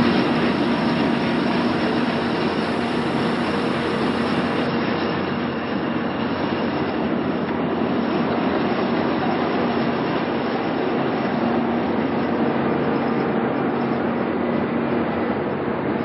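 Combine harvester running steadily: an even machinery noise with a low hum that does not change.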